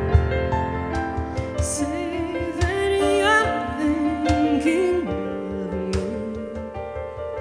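Live band music: a woman sings a slow, wavering melody line over guitar and keyboard accompaniment, settling onto a long held note in the second half.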